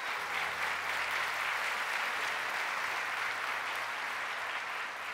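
A congregation applauding: a steady, dense clatter of many hands, with a faint low steady tone underneath.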